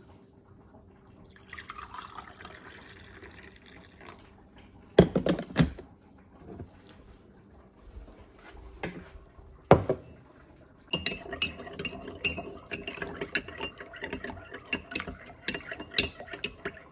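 Hot coffee poured from a glass coffee-maker carafe into a ceramic mug for a few seconds, followed by a few sharp knocks of the carafe and cup being set down on the counter. From about two-thirds of the way in, a metal spoon stirs the coffee, clinking rapidly against the ceramic mug.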